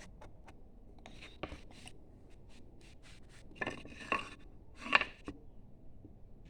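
Hand carving tool cutting into softwood in short strokes: a series of brief scrapes and clicks, loudest about four to five seconds in.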